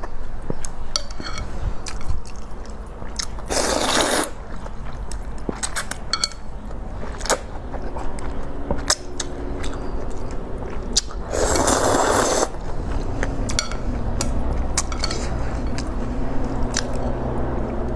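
Close-miked eating of noodles: chewing with many small clicking, wet mouth sounds, and two longer noisy slurps, one near the start and one past the middle.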